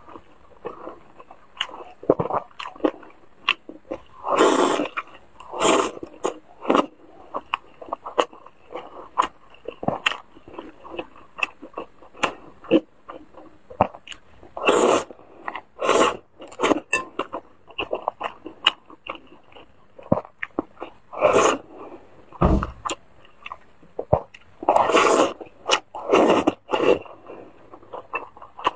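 A person eating wide noodles from a bowl of chili-oil broth, picked up close by a clip-on microphone: wet chewing and soft mouth clicks throughout, with about seven louder slurps of half a second to a second as the noodles are sucked in.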